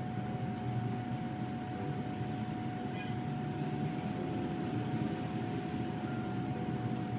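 Steady machine whir and rumble with a constant faint high tone, and a few faint light clicks.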